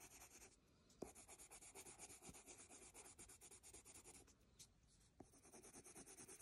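Faint scratching of a wax-based Prismacolor coloured pencil in quick back-and-forth strokes on smooth paper, blending colour. There are two short pauses, about half a second in and about four and a half seconds in.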